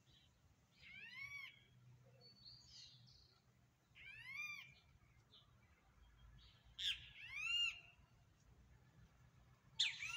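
A bird calling in short, arched calls, about five of them, two close together some seven seconds in, over a faint low hum.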